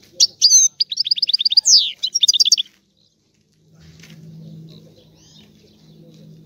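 European goldfinch singing: a loud twittering phrase with a fast trill of repeated notes lasting about two and a half seconds, then a pause. Fainter chirps follow over a low steady hum.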